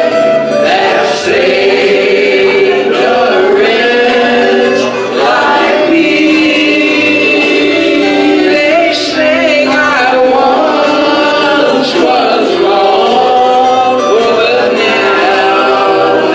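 A gospel vocal group of men and women singing in harmony into microphones, amplified through a PA.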